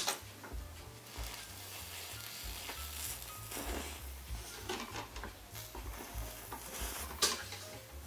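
Gas soldering torch burning with a steady hiss as it heats a brass lamp part for soldering, louder around the middle, with a few light metallic clicks.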